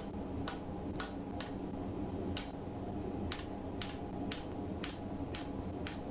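Faint hammer blows on hot flat-bar steel being forged into 90-degree bends, about two light strikes a second, over a steady low hum.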